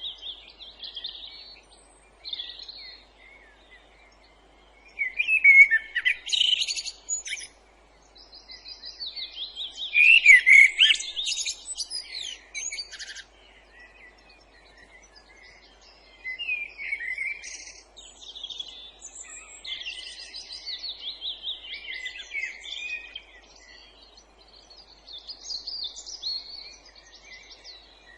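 A chorus of songbirds singing, overlapping phrases of rapid trills, chirps and whistles that come in bursts with brief lulls and become near-continuous in the second half. A faint steady background hiss lies beneath.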